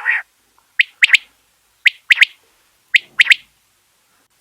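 Quail calling: a repeated three-note phrase, one sharp note followed by a quick pair, about once a second, three times. A short, harsher call opens it.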